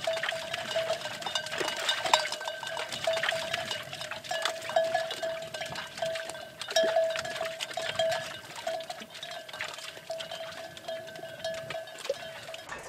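Flock of sheep on the move, their neck bells ringing and clanking without a break: one steady bell note with many quick clanks over it.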